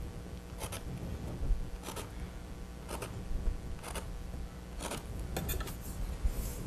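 A pencil scratching short tick marks on a stretched canvas against a ruler, about one stroke a second, with a few quicker ones near the end, marking off the 2-inch grid intervals.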